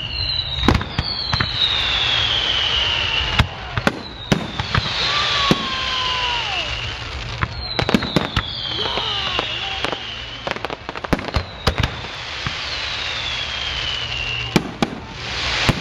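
A fireworks display: a run of bangs and crackling pops from bursting shells. Over them come about five high whistles, each sliding down in pitch over two or three seconds.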